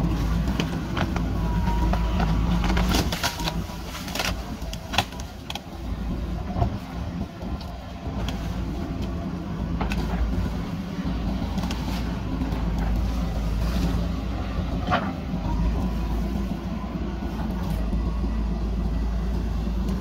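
JCB backhoe loader's diesel engine running under working load, dipping briefly a few seconds in. Sharp knocks and clatters of the bucket striking and shifting soil and stones come in a cluster a few seconds in, and again midway and about three-quarters through.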